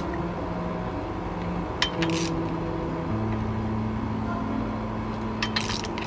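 Hand tools working bolts on an engine: a few short metallic clicks and clinks, a cluster about two seconds in and another near the end, over a steady low hum.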